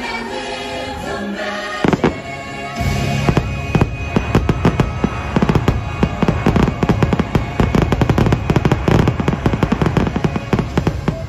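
Fireworks finale: after one sharp bang about two seconds in, a dense barrage of rapid shell bursts, many bangs a second, over the show's music with a choir.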